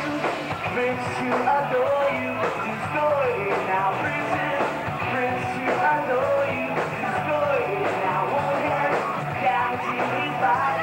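Live rock band playing: drums with cymbals, bass guitar and a singing voice, all loud and continuous.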